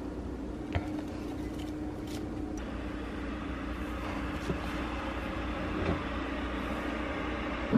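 Light knocks and taps from a cardboard tea box and a plastic honey bottle being taken out of kitchen cabinets, over a steady low hum.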